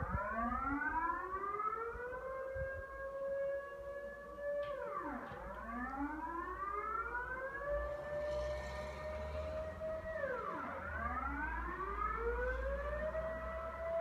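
Outdoor warning siren wailing: a chord of several tones that drops quickly in pitch, climbs slowly back up and holds, the cycle repeating three times, about every five seconds.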